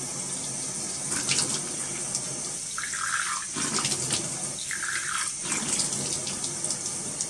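Bathroom washbasin tap running in a steady stream while water is splashed onto a face from cupped hands, with irregular splashes.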